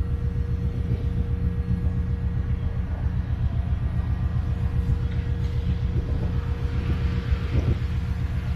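Heavy machinery running steadily aboard a docked car ferry: a low, fast, even throbbing rumble with a constant hum above it.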